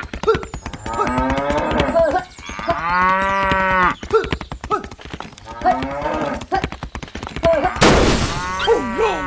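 Cattle mooing: several long lowing calls, one after another, over a steady rapid clicking clatter. A sharp crack sounds about eight seconds in.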